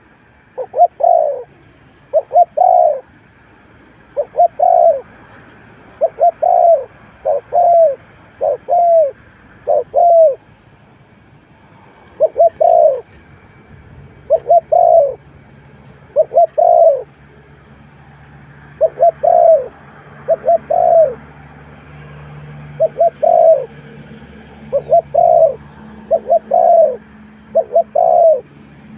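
A spotted dove cooing close up, repeating short two- and three-note coo phrases about every two seconds.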